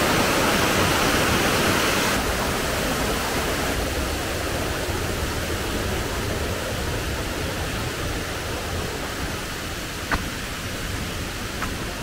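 Steady rush of water cascading and babbling at the Harbiye waterfall, a little softer after about two seconds, with two faint clicks near the end.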